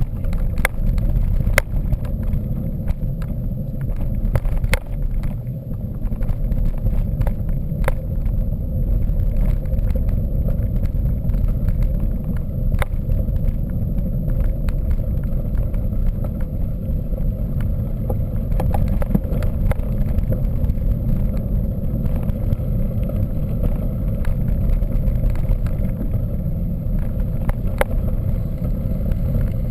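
Mountain bike rolling over rough ground: steady low wind and tyre rumble with scattered sharp clicks and rattles.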